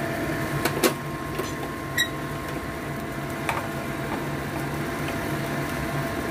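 A steady mechanical hum with a few short, sharp clicks: two near the start, one about two seconds in and one about three and a half seconds in.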